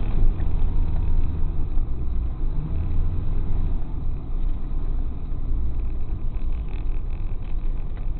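Tow truck's engine running as the truck drives, a steady low rumble heard through a dashcam's microphone.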